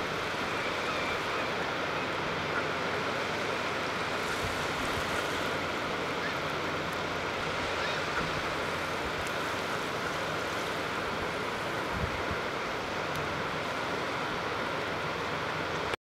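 Steady rush of water at a sandy shoreline, an even wash without breaks.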